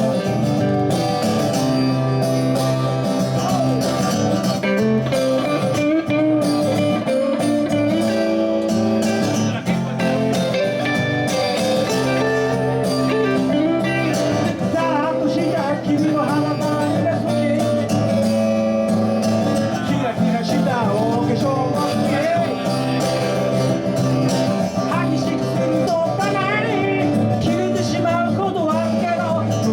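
A live band playing a blues-style song led by guitar, with bending notes through the second half.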